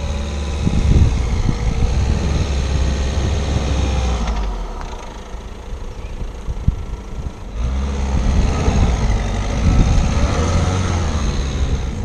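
Peugeot 2008's 1.6 diesel engine revving hard under load as the front-drive car, on Grip Control, pushes through deep loose sand; the revs drop back about four and a half seconds in, then rise hard again about three seconds later.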